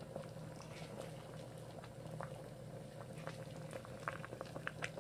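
Pot of chicken broth boiling around a whole chicken: many small bubbling pops, more frequent in the second half, over a low steady hum.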